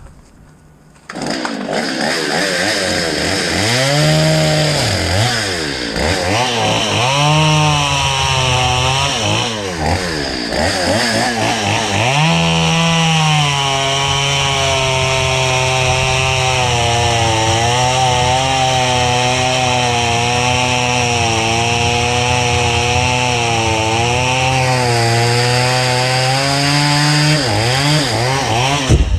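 Two-stroke chainsaw revving and cutting Chinese elm wood: the engine note rises and falls in short revs for several seconds, then settles into a long steady cut at a lowered pitch under load before revving up again and stopping near the end.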